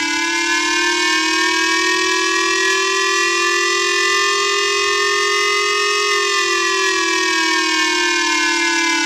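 Emergency Alert System attention tone: a loud, steady, buzzy tone with many overtones. Its pitch drifts slightly upward and then eases down about six seconds in.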